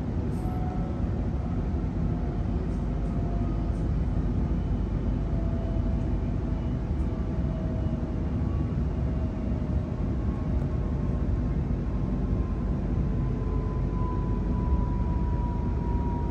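Inside a Sydney Trains Millennium (M set) electric train carriage while it is running: a steady rumble of wheels on track, with faint thin whining tones that drift slowly in pitch.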